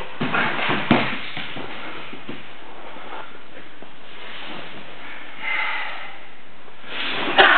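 Karate kata practice: a few sharp snaps and thuds from strikes, gi sleeves and feet on the mat in the first second, then a steady room hiss. A short breathy vocal sound comes about five and a half seconds in, and another sharp snap near the end.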